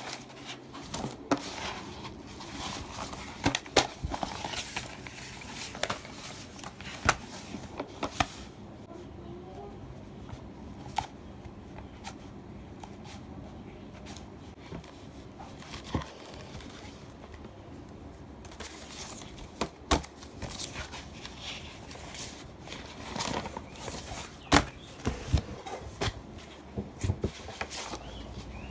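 A black plastic sheet crinkling and rustling as it is handled and folded, with scissors cutting through it during a quieter stretch in the middle.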